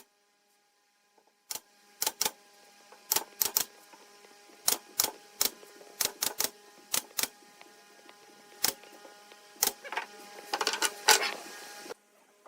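Hammer tapping on wood, sharp separate knocks at an uneven pace, beginning after a brief silence and quickening into a rapid flurry near the end.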